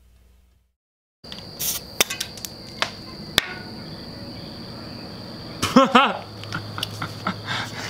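Background music fading out within the first second, then, after a brief gap, a steady high cricket chirring with scattered clicks and knocks from an air-hose chuck being worked on a bicycle tyre valve. A short pitched sound with a wavering pitch comes about six seconds in.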